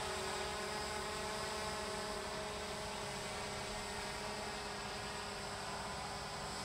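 WATT 200 tethered drone's rotors humming steadily as it hovers, a constant hum with several held tones over a soft rushing noise.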